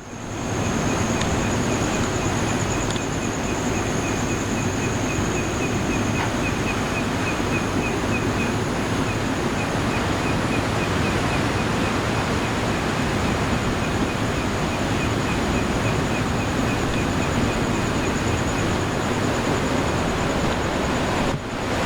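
Night ambience of surf washing steadily on the shore, with a steady high-pitched insect trill and a second insect's rapid pulsing chirp that fades out near the end.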